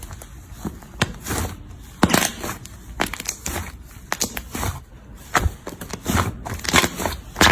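Hands squeezing and pressing slime, making irregular sticky clicks, pops and crackles.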